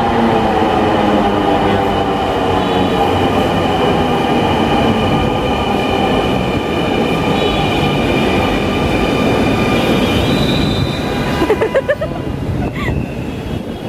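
Dhaka metro train pulling into the station, its motors whining in several tones that slowly fall in pitch as it brakes, over steady rail and wheel noise. The sound eases off about three-quarters of the way through as the train comes to a halt.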